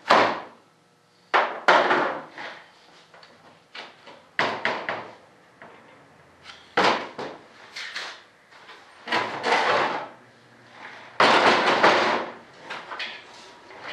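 Repeated sharp knocks, cracks and scraping bursts, about seven of them with pauses between, as the mold for an RC jet's vertical stabilizer is pried and worked apart by hand and tool to release the part.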